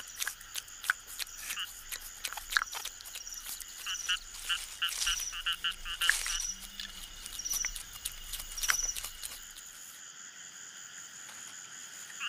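Night jungle chorus of frogs calling in short, repeated high chirps. Irregular sharp clicks and crackles run through most of it and stop about ten seconds in.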